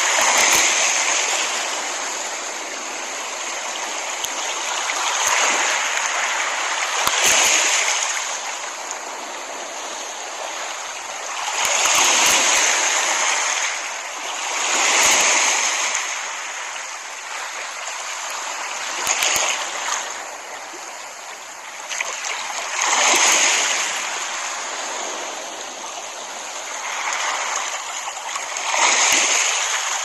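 Small ocean waves breaking and washing up a sandy shore: a hiss of surf that swells and eases every few seconds.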